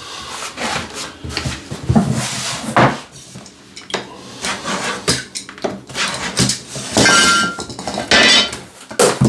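Utility knife scoring a vinyl plank along a speed square: a run of short scraping strokes, mixed with knocks of the plank and square being moved on the floor.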